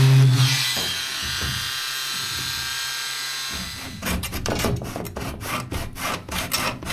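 A steady motor-like hum cuts off just under a second in; from about four seconds, quick back-and-forth rasping strokes, roughly three a second, of cheese wire sawing through the Sikaflex sealant holding a metal bracket to the van ceiling.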